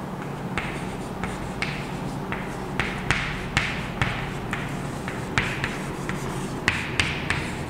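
Chalk writing on a chalkboard: a steady run of short scratchy strokes and taps, about two to three a second, as letters are written.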